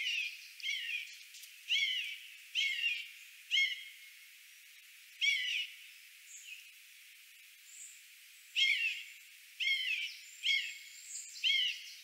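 Eagle calling: a series of short, high, falling calls about once a second, with a pause of about three seconds in the middle.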